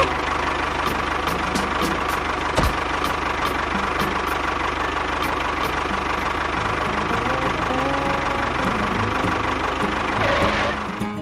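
A small engine running steadily with a rapid, even knock, fading out near the end.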